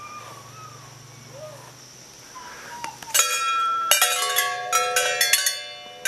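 Large wind chime of long metal tubes ringing, its tubes struck again and again from about halfway in, each strike leaving several long steady tones. Before that, only a faint low hum.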